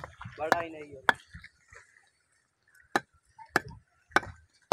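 A small hand tool knocking on bricks: four sharp, separate knocks at uneven gaps of half a second to two seconds. A child's voice sounds briefly about half a second in.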